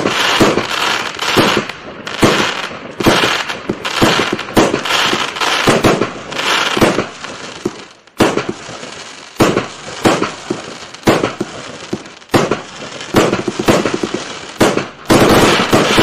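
A 300-shot, 25 mm firework cake firing: a rapid run of sharp bangs, about two a second, with crackling between them. A brief lull comes about eight seconds in, and a dense, continuous burst comes near the end.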